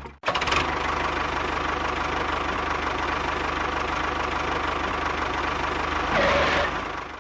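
A small motor running steadily with a fast low rattle, briefly louder about six seconds in.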